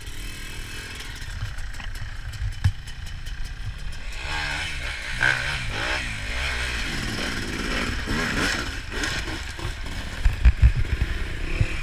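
Off-road motorcycle engine running, its pitch rising and falling as it is revved from about four seconds in. A few loud thumps come near the end.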